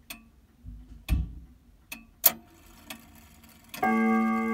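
Grandfather clock mechanism giving a few sharp, irregular clicks. About four seconds in, a hammer strikes the metal chime rods, and they ring on with several sustained tones as the chime begins.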